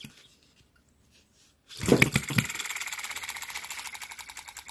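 Model hit-and-miss engine (3.4 cc four-stroke petrol) firing suddenly about two seconds in with a few loud bangs, then its flywheels running on with a fast, even clicking that slowly fades. The governor latch is stiff.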